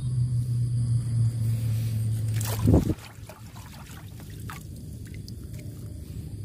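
Water trickling and dripping with small splashes. A low steady hum runs until about three seconds in and stops just after a brief loud noise.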